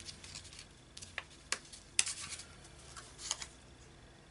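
Die-cut cardstock ephemera pieces handled and shuffled by hand: light paper rustling with a few scattered sharp ticks and flicks, the sharpest about two seconds in.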